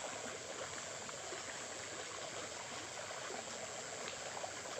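Small stream of water running steadily, an even rush and trickle.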